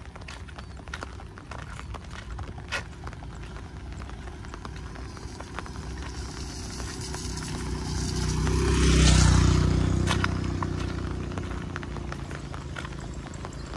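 A motor vehicle passes close by, swelling to its loudest about nine seconds in and then fading away. Steady rain noise and scattered sharp taps run underneath.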